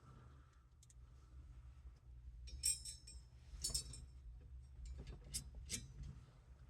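Faint metallic clinks and clicks of small steering-wheel and horn-ring parts being handled, four or five of them spread over a few seconds, over a low steady hum.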